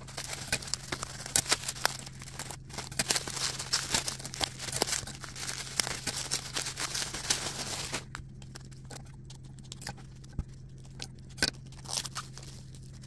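Plastic bubble wrap crinkling and crackling as it is cut open with scissors and peeled off a small object, a dense run of small crackles that thins out about eight seconds in. A steady low hum runs underneath.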